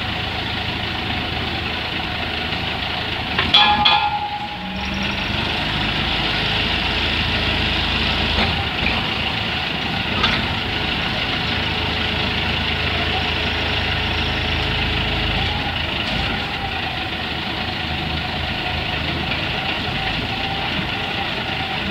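Engine of a truck-mounted guardrail drilling rig running steadily while its hydraulic drill mast is folded down onto the truck bed, with a brief clatter about four seconds in; the low engine note grows heavier for a stretch and eases off about two-thirds through.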